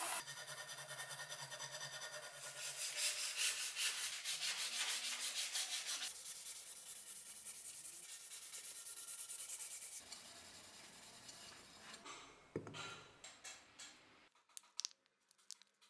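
Sandpaper rubbing back and forth on a cleaver's ash wood handle in quick, rhythmic strokes, broken into several short stretches. The rubbing grows weaker later on, and a few scattered clicks come near the end.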